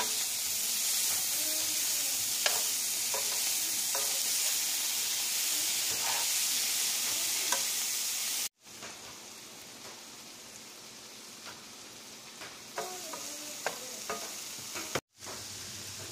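Collard greens sizzling as they fry in a pan, with a utensil stirring them and small clinks now and then. The sizzle is loud, then drops suddenly to a quieter sizzle about eight and a half seconds in, and cuts out briefly near the end.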